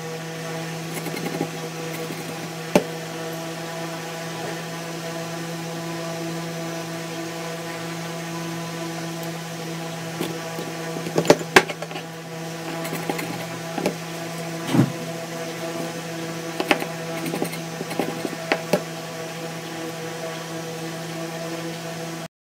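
Kitchen knife and fingers working flaked fried dried fish on a plastic cutting board: scattered light taps and clicks, with a cluster of sharper taps about halfway through, over a steady hum.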